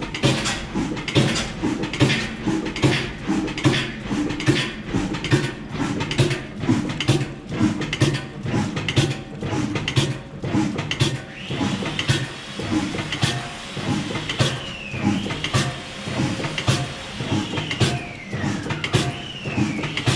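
Old stationary engine running slowly, with a regular knocking beat of about two strokes a second. From about twelve seconds in, several high squeals fall in pitch over it.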